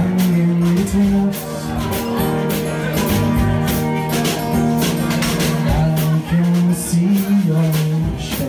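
Live band music: acoustic guitar, a drum kit with cymbals and a keyboard playing a song together, with a man singing.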